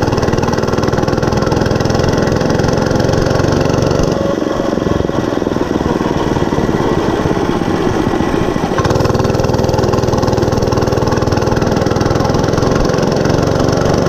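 Monster Moto 105 mini bike's small single-cylinder four-stroke engine running under way. The throttle eases off about four seconds in, then comes back on suddenly a little under nine seconds in, and the engine pulls on with a slowly rising pitch.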